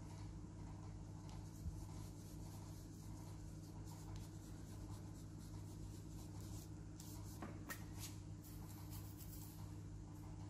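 Coloured pencil scratching on paper in quick shading strokes as an area of a drawing is filled in green, mostly in the second half, over a steady low electrical hum.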